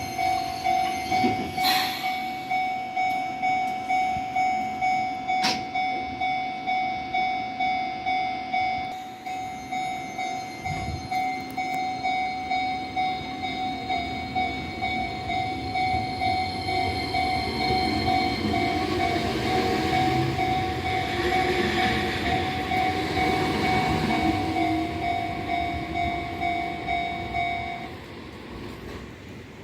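Japanese level-crossing alarm sounding in an even pulsing ding, a bit faster than once a second, as an Enoshima Electric Railway (Enoden) electric train runs through the crossing. The train's running noise swells in the second half. The alarm stops a couple of seconds before the end.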